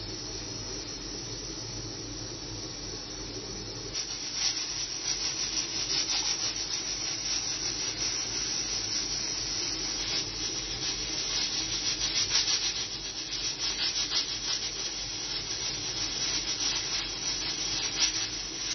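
Aluminium pressure cooker heating on a gas stove as it builds pressure: a steady rushing hiss, joined about four seconds in by a rough, uneven sputter of steam escaping at the vent.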